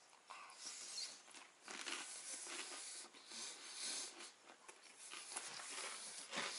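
Faint chewing and nasal breathing of a man eating a pan-fried bread sandwich, with small clicks from the mouth and crust.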